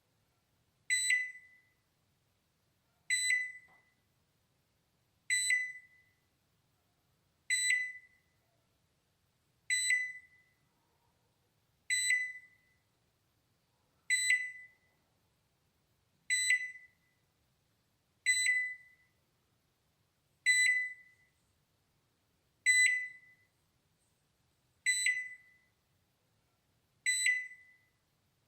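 Balay microwave oven's alarm beep: a single short, high-pitched beep with a sharp start and a quickly fading tail, repeating evenly about every two seconds.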